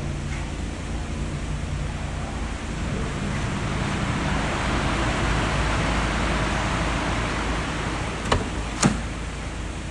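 Car engine running with a low steady hum under a rushing noise that swells in the middle; two sharp clicks come close together near the end.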